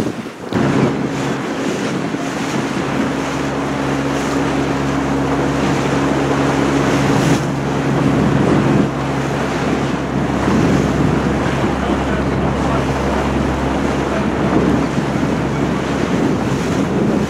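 Wind buffeting the microphone and water rushing past a boat's hull, over a boat engine's steady hum at a constant pitch. The hum comes in about half a second in and eases somewhat in the second half.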